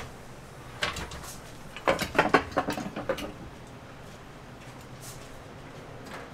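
Clatter of waffle making at metal waffle irons: a single click about a second in, then a quick run of sharp clacks as the irons are opened and crisp waffles are lifted out and stood in a wire rack, over a steady low hum.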